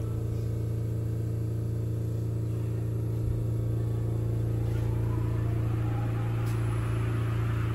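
Sapporo Subway Tōzai Line rubber-tyred train running in the tunnel, heard from inside the car: a steady low hum with a rushing running noise that grows louder from about five seconds in.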